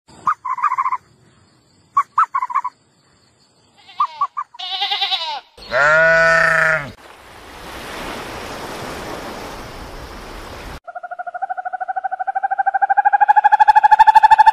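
A run of different animal sounds cut one after another: a few short chirping calls, a loud bleat-like call, then a stretch of steady hiss. About eleven seconds in, a snowy owl gives a long, buzzy call that rises slightly in pitch.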